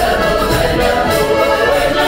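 Mixed folk ensemble singing a Don Cossack song in several voices, with accordion accompaniment.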